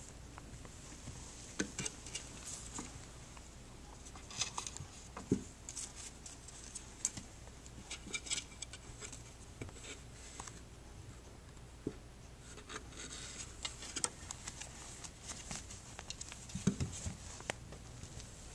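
A kitten playing with a feather toy on carpet: irregular light taps, scratches and rustles as it bats, pounces and scrabbles, with a few sharper knocks, the loudest near the end.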